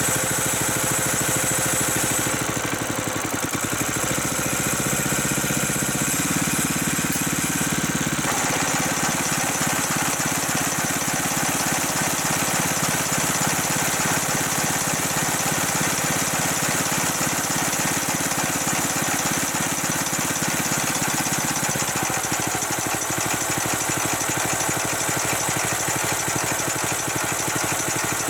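Newly fitted four-stroke engine on an MF-70 sickle-bar mower running steadily at idle while it warms up. Its tone shifts a few times and turns noisier about eight seconds in.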